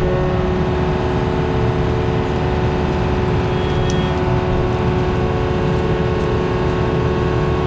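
Diesel engine of compact earthmoving equipment running steadily at working speed, with a steady hydraulic whine over the engine drone.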